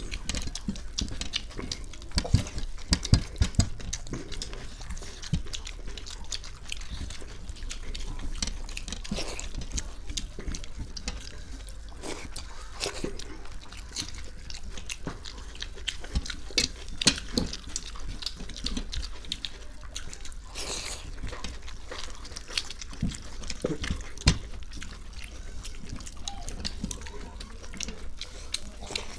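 Eating by hand from steel plates of panta bhat (rice soaked in water): wet squelching and splashing as fingers mix the watery rice, with chewing and mouth noises and a steady patter of small clicks. A few sharper knocks stand out, the loudest about three seconds in and again near the end.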